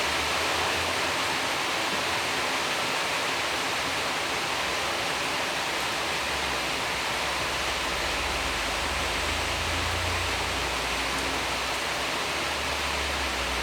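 A steady, even hiss with no breaks or distinct events.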